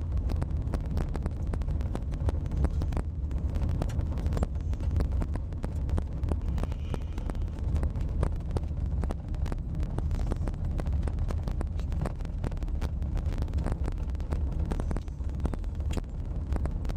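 Wind buffeting the camera microphone: a low rumble with frequent crackles.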